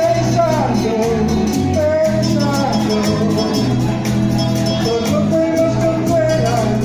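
A man singing a melody into a microphone over a live electronic keyboard accompaniment, with bass notes and a steady programmed beat, all amplified.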